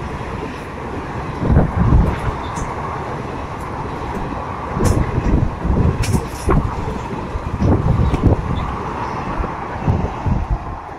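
ICF passenger coaches of an express train running past at speed: a steady rolling rumble with repeated heavy clunks as the wheelsets cross the rail joints, dying away near the end as the last coach goes by.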